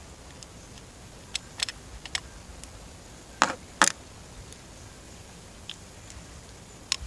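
Scattered sharp clicks and clinks of hand tools and small metal parts as wire terminals are unscrewed from an outboard's power pack (switch box) with a nut driver, the loudest a pair of knocks about three and a half seconds in.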